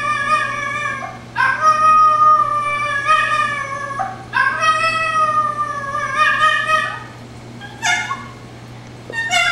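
Miniature dachshund mix (chiweenie) howling in long, pitiful howls, each two to three seconds long, rising at the start and then sliding slowly down in pitch. Between the howls come short breaks, and a brief yelp comes near the end just before a new howl begins. The owner says she howls like this when she realizes she is the only one in the room.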